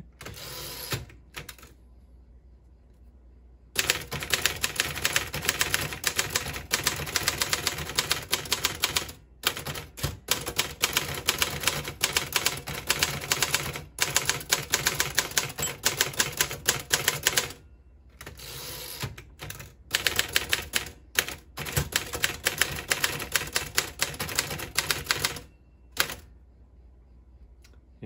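1958 Royal FP manual standard typewriter being typed on: rapid keystrokes with the typebars striking its hard platen. The typing starts about four seconds in and runs in stretches of several seconds, broken by brief pauses.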